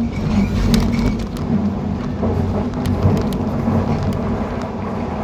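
John Deere 350G excavator's diesel engine running under load, heard from inside the cab as a steady hum and rumble, with scattered knocks and clatter from the machine at work as it handles rip rap rock.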